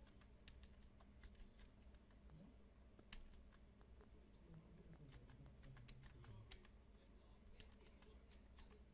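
Faint typing on a computer keyboard: a run of irregular keystroke clicks, over a low steady hum.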